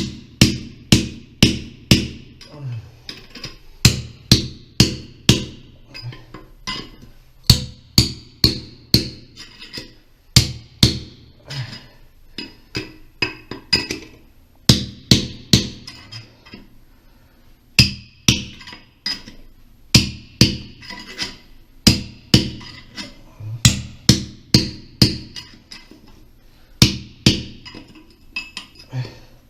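A hand hammer striking a metal tool again and again, about three blows a second in runs of four to eight with short pauses between runs, each blow ringing briefly.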